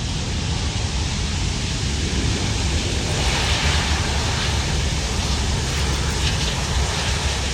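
Jet noise from a Boeing 737 MAX 8's CFM LEAP-1B turbofans: a steady rushing sound over a deep rumble, turning brighter and hissier about three seconds in.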